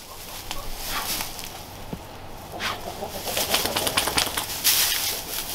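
Dry straw bedding rustling and crackling as a dog noses and steps through it, growing busier in the second half.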